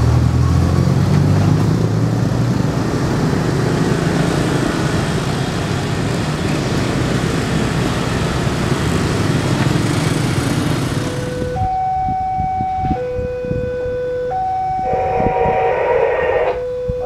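Road traffic crossing a railway level crossing: motorbike and car engines passing close, loudest at the start. About two-thirds of the way in, the sound cuts to a level-crossing warning siren sounding two alternating tones, high then low, each held about a second and a half, warning of an approaching train.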